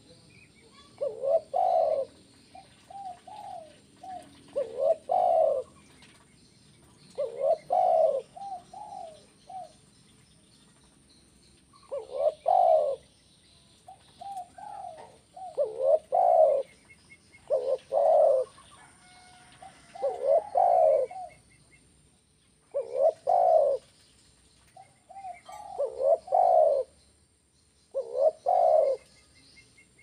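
Spotted dove cooing: repeated phrases every two to three seconds, each a loud, low two-part coo with softer short coos around it.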